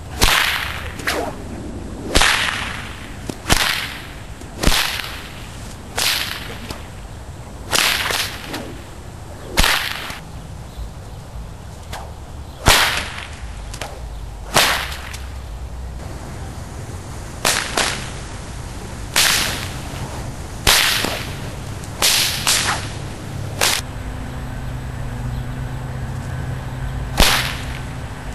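A series of sharp whip cracks, about twenty, mostly one to two seconds apart, with a couple of longer pauses and some cracks in quick pairs. Each crack has a short trailing tail.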